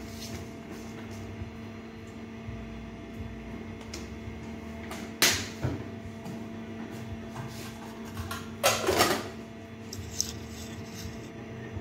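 Kitchen handling noises over a steady low hum: a sharp knock about five seconds in and a louder, rattling clatter lasting about half a second near nine seconds in, with a small click just after.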